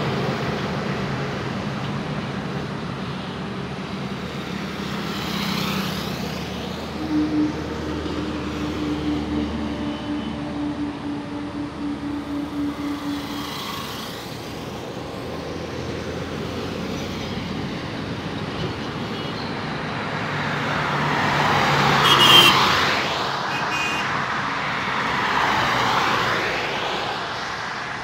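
Highway traffic: trucks and cars passing one after another, each rising and then fading away, the loudest pass about 22 seconds in. From about seven to thirteen seconds in, a low steady drone pulses a few times a second under the traffic.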